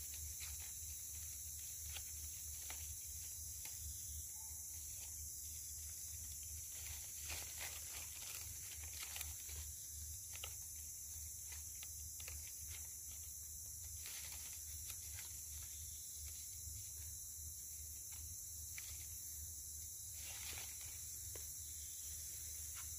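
Steady high-pitched drone of a tropical forest insect chorus, with faint scattered crackles of dry leaves and leaf litter being handled.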